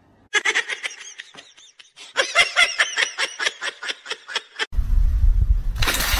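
A person giggling in quick repeated bursts for about four seconds. Then, about three-quarters of the way in, a loud rushing noise with a deep rumble starts suddenly.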